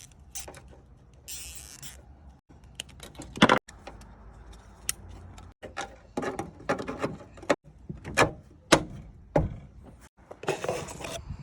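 Hands working on parts and tools: irregular clicks, knocks and short rattles, broken by a few abrupt silent gaps.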